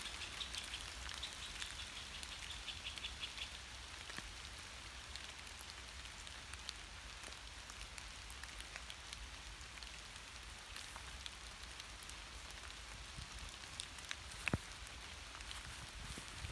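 Steady light rain pattering on leaves and the forest floor, full of tiny drop ticks, with one sharper click near the end.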